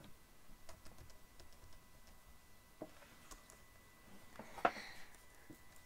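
Computer keyboard keys being tapped at an uneven pace, faint, as characters are deleted and typed, with one louder click about four and a half seconds in.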